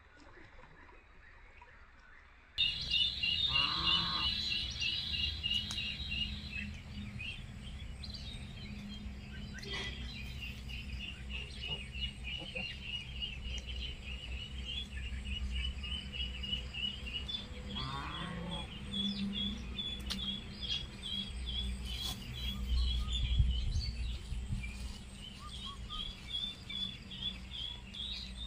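Small birds chirping outdoors: a fast, even run of short high chirps, about five a second, that starts abruptly about two and a half seconds in, over a low steady rumble.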